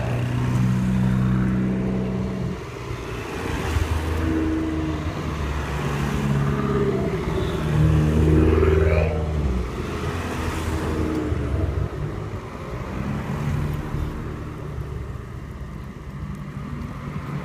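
Engines of a line of small hatchback cars, Abarth 500s among them, driving past one after another. The engine note swells and fades with each car and is loudest about halfway through.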